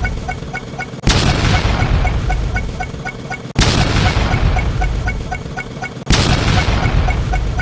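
An explosion sound effect played three times, about every two and a half seconds. Each is a sudden blast followed by a long fading rumble, over a faint rhythmic ticking.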